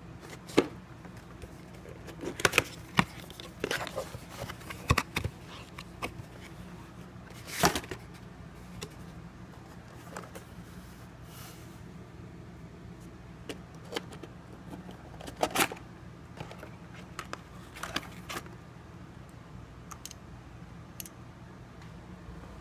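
Cardboard CPU retail box and the stock Intel heatsink cooler being handled and unpacked: scattered sharp clicks, taps and short rustles of cardboard and plastic, the loudest about eight seconds in and again around fifteen seconds, over a steady low hum.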